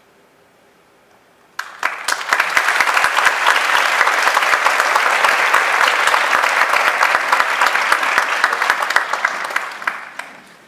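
Audience applauding: the clapping starts suddenly about a second and a half in after a hush, holds steady and dense, and fades out near the end.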